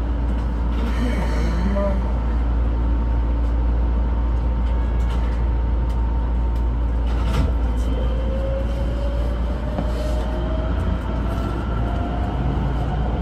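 Keikyu 1500 series electric train pulling away, heard from the driver's cab: a steady low rumble with a few knocks, and from about two-thirds of the way through a motor whine rising slowly in pitch as the train gathers speed.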